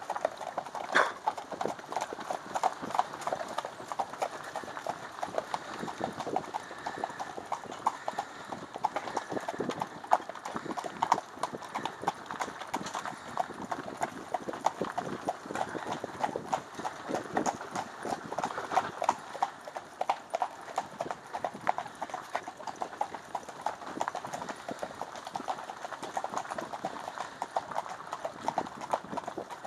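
Hoofbeats of a pair of harnessed horses pulling a cart along a dirt track: a continuous, irregular run of clip-clops from the two teams of hooves.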